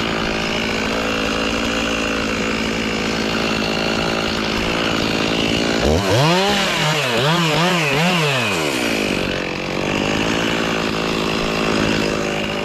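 Two-stroke chainsaw running steadily at high revs, then revved down and up about four times in quick succession around the middle before settling back to a steady high-revving run.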